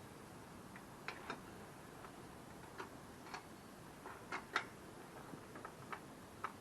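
About a dozen light, irregular clicks and taps from tools and parts being handled while working on a mountain bike's crankset and pedals; the loudest comes about four and a half seconds in.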